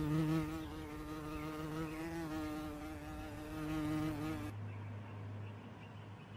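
A flying insect buzzing, a steady drone that wavers slightly in pitch, cutting off about four and a half seconds in; a faint low hum follows.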